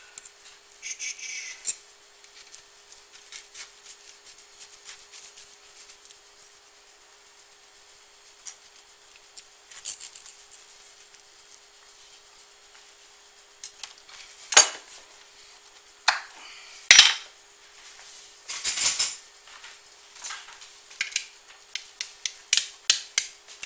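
Cutlery and dishes clinking and scraping: utensils knocking on a ceramic plate in scattered strikes, a few loud clinks in the second half and a quick run of them near the end, over a faint steady hum.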